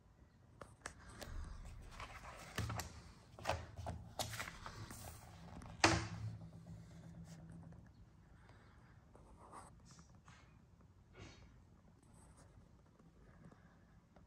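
Handling noise: rustling and a run of clicks and knocks, busiest in the first half, with one sharp click about six seconds in, then only a few faint clicks.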